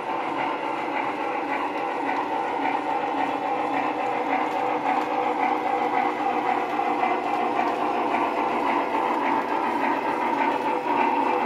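Model train running past on its layout track: a steady mechanical whir from the motor and wheels, with a faint fine clicking over the rails.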